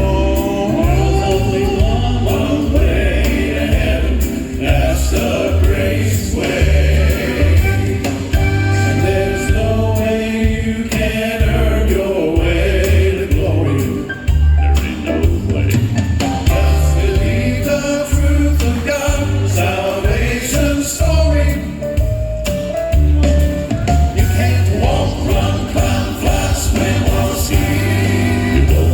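Gospel quartet singing in harmony over band accompaniment with a steady, pulsing bass beat.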